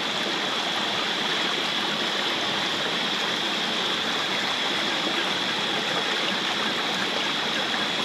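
Stream water running steadily over its bed, with a steady high-pitched tone over the rush.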